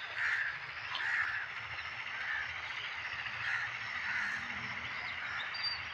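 Birds calling repeatedly outdoors, short calls coming about once a second over a steady low background noise.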